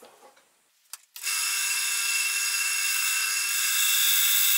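A turning tool pressed against the spinning wood on a lathe, a loud steady high cutting noise over a low hum that starts suddenly about a second in and breaks off abruptly near the end, as the recess for the clock movement is marked out.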